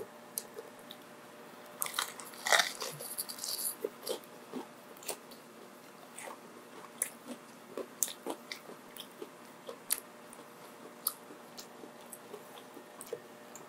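A person taking a loud crunching bite into crispy food about two seconds in, then chewing close to the microphone with many small crunches and clicks.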